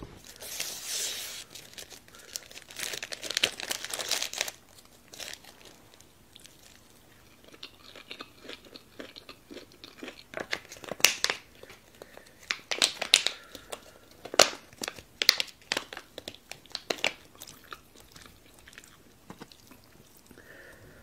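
Plastic food wrappers crinkling and rustling for the first few seconds. Then a long run of sharp crunches and clicks as food and containers are handled and eaten.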